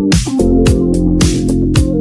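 Electronic background music with a steady kick-drum beat about twice a second, crisp high percussion and sustained keyboard chords.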